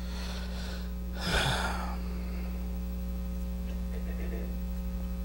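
A man's breath, a short audible exhale into a microphone, about a second in, over a steady electrical mains hum.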